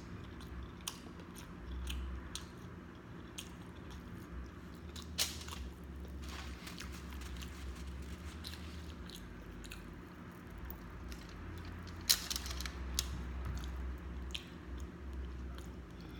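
Close-up mouth sounds of eating sausage links and chips: chewing with scattered small clicks, and two sharp crunching bites, about 5 seconds in and about 12 seconds in.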